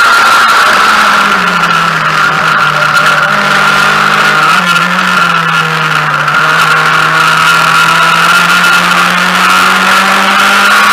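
Mazda MX-5 race car's four-cylinder engine, loud inside the cabin at racing revs. About a second in the note drops as the car eases off through a corner, holds lower with a brief blip partway, and climbs again near the end as it accelerates out.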